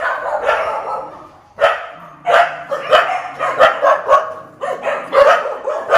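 Kennelled shelter dogs barking. The barking dips briefly about a second and a half in, then comes back as a rapid run of sharp barks, nearly three a second.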